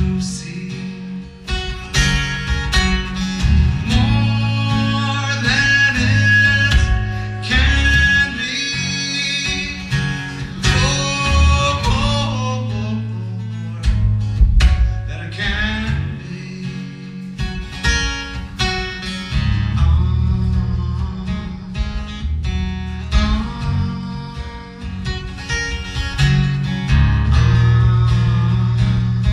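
Acoustic guitar played live, a steady flow of picked and strummed notes and chords over a low bass register.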